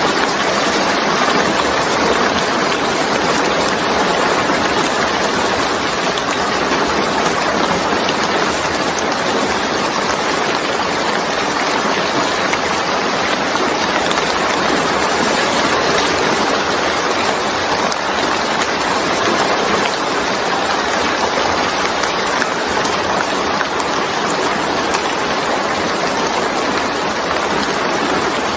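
Steady, even rainfall, a constant hiss of falling rain with no breaks or changes.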